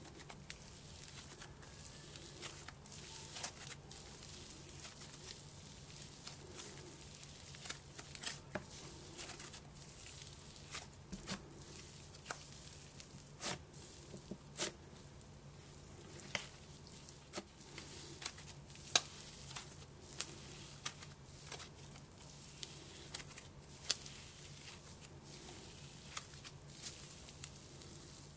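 Cloud slime being kneaded, pressed and stretched by hand, giving off irregular soft crackles, squishes and small pops as its fluffy strands tear apart, with one sharper pop about two-thirds of the way through.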